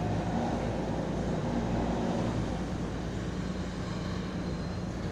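Marine diesel engine of a cargo vessel running steadily, a low drone with a slight swell in the first couple of seconds.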